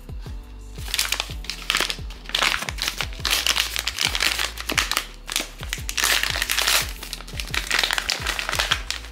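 Plastic packaging crinkled and rustled in the hands in repeated bursts, over background music with a steady beat.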